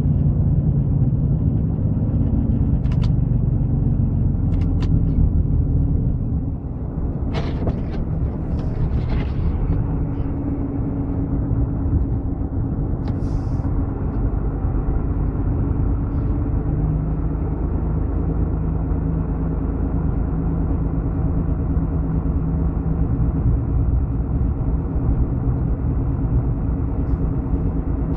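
Steady low rumble of a running road vehicle, with a few brief clicks in the first half.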